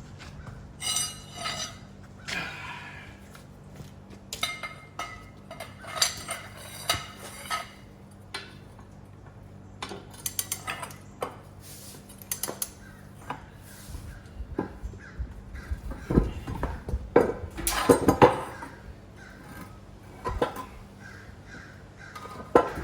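Metal tools and parts clinking and clanking with pauses between, some strikes ringing briefly, and a denser burst of clatter about two-thirds of the way through, over a steady low hum.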